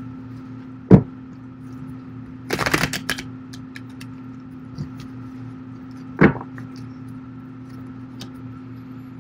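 A deck of tarot cards being shuffled and handled: a sharp tap about a second in, a short rustling shuffle near three seconds, and another tap around six seconds, over a steady low hum.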